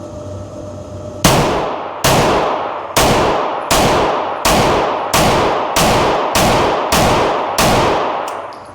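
Glock 19 9mm pistol fired ten times in a steady string, a shot every second or less, each shot loud with a long echoing tail.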